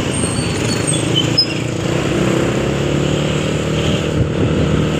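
Motorcycle engine running steadily while riding through traffic, with wind and road noise.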